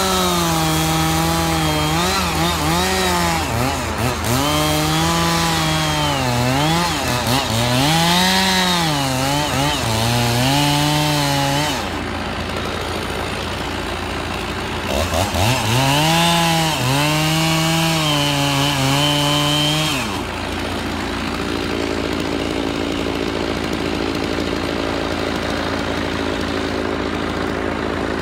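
Chainsaw cutting into the trunk of a large tree, its engine pitch dipping and recovering as the chain bogs in the wood. It eases off briefly about halfway through, revs back up with a rising pitch and cuts again, then settles to a lower, steadier running for the last third.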